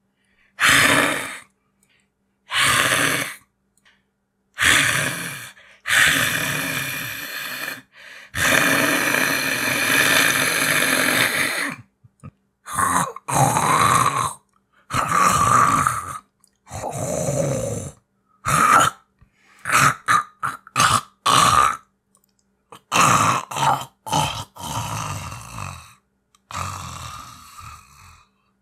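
A voice actor performing cat-monster vocal sounds: a string of separate guttural growls, grunts and breathy creature noises, each cut off to silence. The longest, near the middle, lasts about three seconds, and the later ones come shorter and faster.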